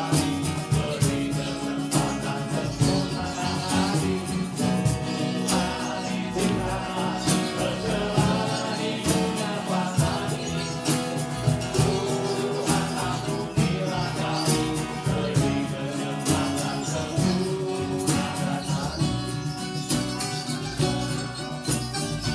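A band's song as background music: guitar with singing over a steady beat.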